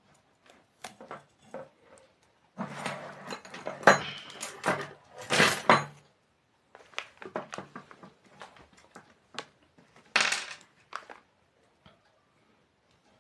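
Aluminium plates and bolts clinking and clattering as they are handled and fitted together: scattered sharp metallic clicks, with three denser bursts of clatter.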